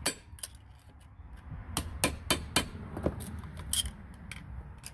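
Claw hammer tapping the end of a screwdriver that is wedged against the old wear ring of a jet-ski pump housing, driving the ring out. About eight sharp, irregular taps, which start after a quiet first second or so.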